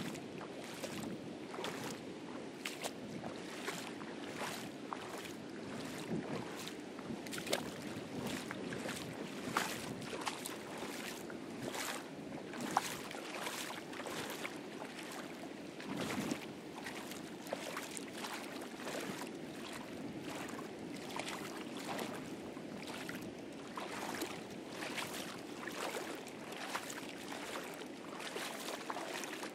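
Shallow seawater splashing and sloshing around wading feet, in many irregular short splashes, over a steady rush of surf breaking on the reef.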